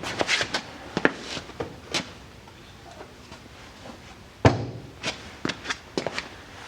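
Scattered clicks and clunks of tools and parts being handled, with one heavier knock about four and a half seconds in.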